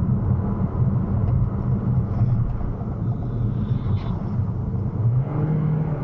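Steady low rumble of a car's engine and tyres heard from inside the cabin while driving on a wet road, with a faint brief sound as oncoming vehicles pass about four seconds in.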